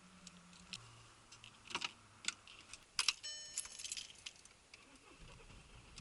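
Faint, scattered light clicks and a short ringing jingle about three seconds in.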